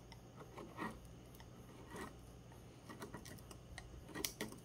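Palm gouge cutting into tree bark by hand: a few faint short scraping strokes, the sharpest about four seconds in.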